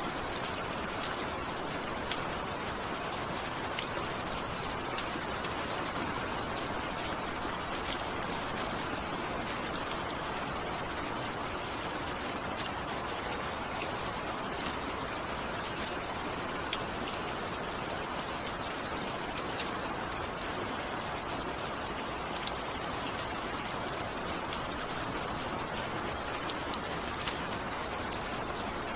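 Steady rain falling, with many individual drops ticking sharply on a hard surface through an even hiss.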